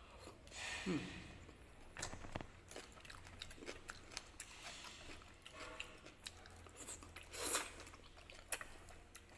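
A person chewing a mouthful of tteokbokki rice cake, with soft wet mouth sounds and small clicks. A brief hummed vocal sound comes about a second in, and a louder breathy sound a little past the middle.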